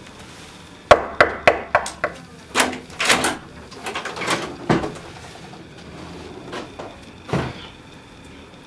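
Knocking on a door: five quick raps about a second in, then clicks and knocks as the door is opened.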